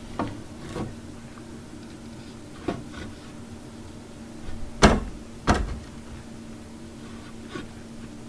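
Hand knocks and taps from handling building materials: a few light knocks, then two loud sharp knocks about five seconds in, half a second apart, over a steady low hum.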